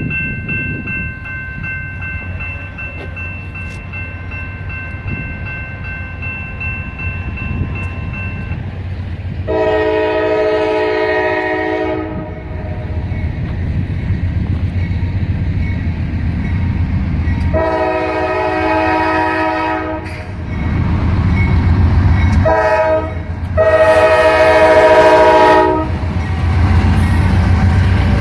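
Norfolk Southern freight locomotive sounding its air horn in the grade-crossing pattern of long, long, short, long, over the steady rumble of the passing train. A quieter, steady chord sounds for about the first eight seconds, before the first loud blast.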